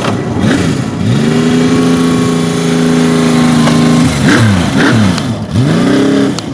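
Benelli 750 Sei's inline-six engine being revved. The revs climb about a second in and are held high and steady for about three seconds, then drop, with a few quick rises and falls of the revs near the end.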